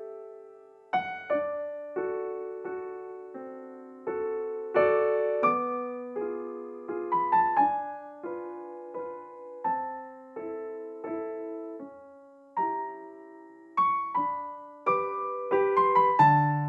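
Background music: a slow, gentle piano melody of single struck notes, each left to ring and fade, one or two a second; a lower bass note joins near the end.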